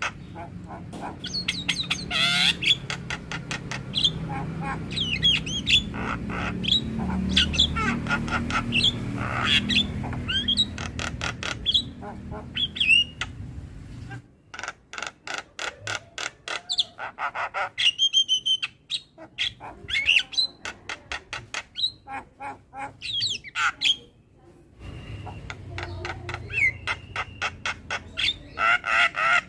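Javan myna (jalak kebo) singing: long runs of fast, harsh chattering notes mixed with whistled glides and squawking calls, with brief pauses about halfway and again a few seconds before the end.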